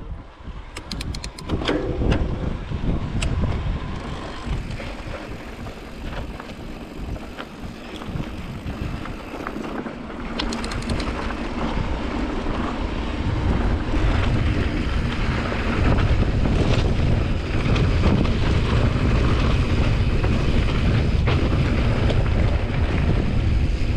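Wind buffeting the microphone and mountain-bike tyres rolling over a gravel dirt road on a downhill run, with a few sharp ticks near the start and again about ten seconds in. The noise grows steadily louder through the middle and stays loud as the bike picks up speed.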